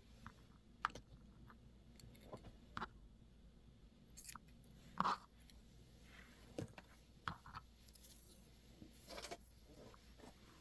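Faint handling sounds of a knitted piece, yarn and a metal darning needle on a tabletop: scattered small ticks and rustles, the loudest about five seconds in.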